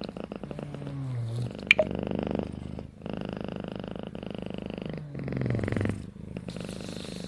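A drowsy kitten purring, the purr swelling twice with its breathing. A brief sharp click about a second and a half in.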